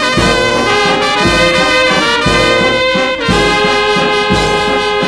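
Instrumental brass music, with trumpets and trombones holding chords over a low bass beat about once a second.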